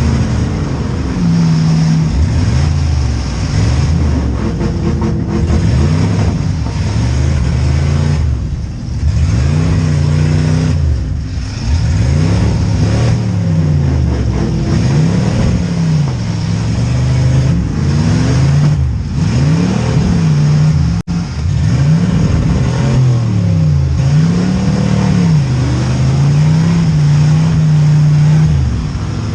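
Several V8 demolition derby cars' engines revving up and down over and over, their pitches rising and falling and overlapping as they accelerate and back off.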